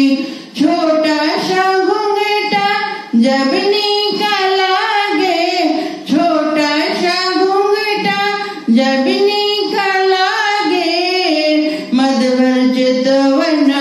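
A woman singing a devotional dadra folk song solo into a handheld microphone, without accompaniment, in sung phrases about three seconds long with short breaths between them.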